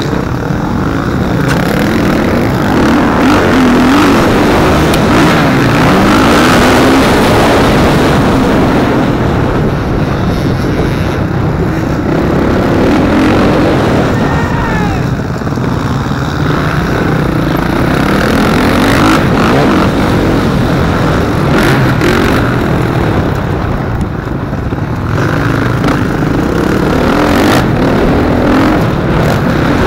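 Motocross dirt bike engines being ridden hard, the pitch repeatedly rising and falling as the throttle is opened and closed, heard from a camera on a moving bike close behind other bikes.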